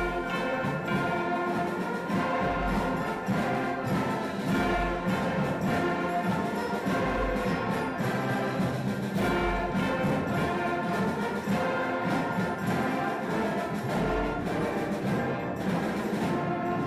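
Massed ensemble of young musicians (strings, brass, woodwind and guitars) playing a march together, with a deep drum-like thump about every two seconds.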